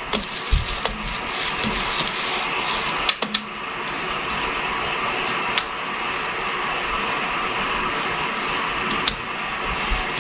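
Continuous rustling and crackling of artificial Christmas tree branches being handled and spread out, with scattered small clicks.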